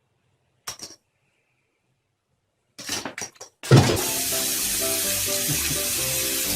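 A few short, sharp noises in a quiet stretch, then background music comes in with a loud hit about halfway through and plays on over a steady hiss.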